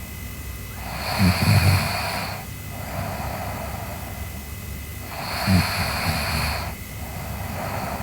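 A sleeping girl snoring: two breaths about four and a half seconds apart, each a loud rattling snore followed by a softer breath out.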